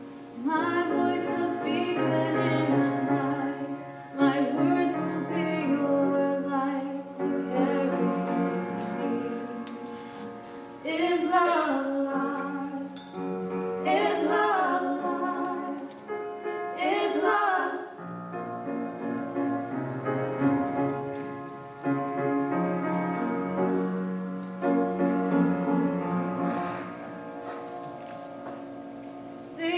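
Music: classical-style singing with piano accompaniment, in phrases of long held, wavering notes over sustained low notes. It comes in abruptly and loudly right at the start.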